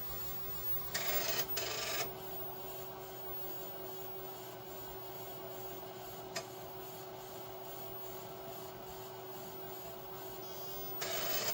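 Tandy 6000's 8-inch floppy drive seeking and reading a diagnostic disk as the computer boots from it: two short noisy bursts about a second in, a single click midway, and another burst near the end, over a steady hum.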